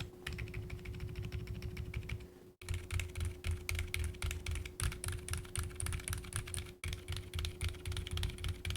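Typing on a mechanical keyboard fitted with Akko Fairy Silent linear switches, whose silicone pads on the stem guides damp each keystroke: a fast, continuous run of keystrokes, broken briefly twice.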